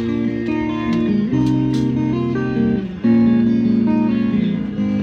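Guitar music: strummed chords that change every second or so.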